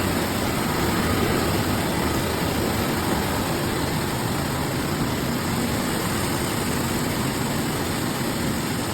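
Rice milling machine with destoner, for husking brown rice and whitening it, running steadily: a dense, even mechanical noise with no breaks.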